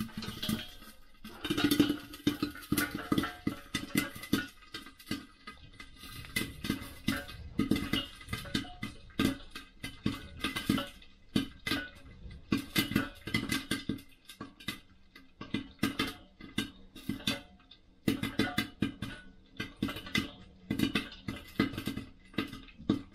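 Popcorn kernels popping inside a lidded stainless-steel pot on a hob: a dense, irregular run of sharp pops, several a second, sparse at first and coming thick from about a second and a half in.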